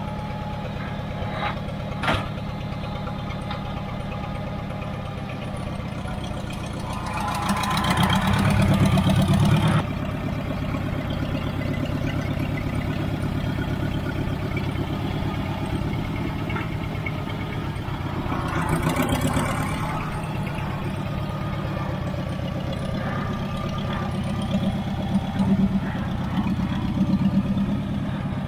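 Engine of a small red ride-on loader with pallet forks, running steadily. It revs up for about two seconds some eight seconds in and briefly again around nineteen seconds in. A sharp click comes about two seconds in.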